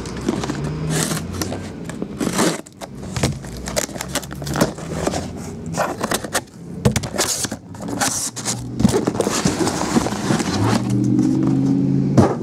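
A cardboard case of sealed trading-card hobby boxes being opened and unpacked: cardboard flaps and boxes scraping and sliding against each other, with irregular crackles and knocks.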